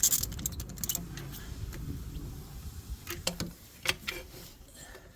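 Hand tools and metal parts clicking and clinking as the upper radiator hose and its spring clamp are worked onto the thermostat housing, with a cluster of clicks at the start and a few more about three seconds in.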